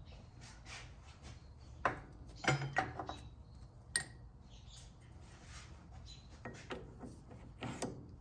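Metal tools and parts clanking and rattling as they are handled on the lathe, likely setting up to bore. The clanks are irregular, with a few sharper knocks, over a faint low steady hum.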